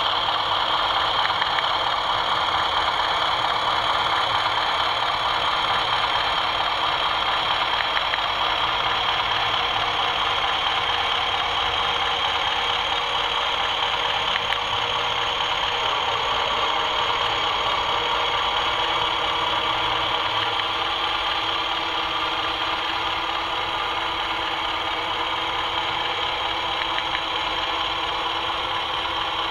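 Sound-fitted model Class 20 diesel locomotive running, its sound decoder playing a steady diesel engine note through the model's small speaker, fading slightly near the end as it moves away. The sound never cuts out, the sign that the track has no dead patches.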